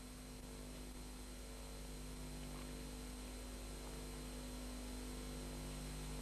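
Steady electrical hum with a faint even hiss, the recording's background noise, with no other distinct sound.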